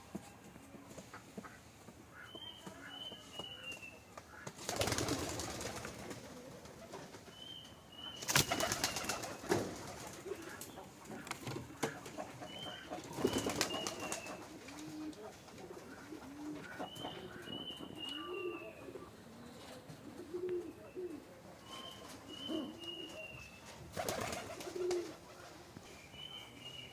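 Domestic pigeons cooing low and softly, with several loud bursts of wing flapping. Another small bird repeats a short, high, falling chirp phrase every two or three seconds.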